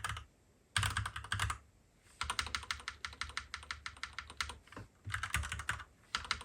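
Fast typing on a Royal Kludge RK98 mechanical keyboard with linear red switches: three quick runs of key clicks with short pauses between them.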